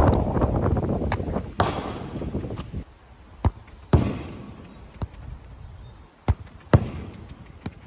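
A football struck with the laces and bouncing on artificial turf: a string of sharp thuds, roughly one a second, the loudest right at the start. Wind buffets the microphone during the first couple of seconds.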